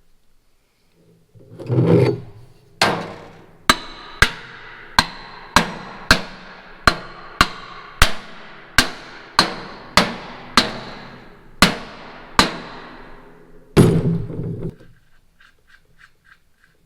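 A hammer striking metal about fifteen times at a steady pace, each blow ringing briefly, while parts of a disc mower's driveline are driven into place. A rough scraping clatter comes before the blows, and a louder one follows near the end.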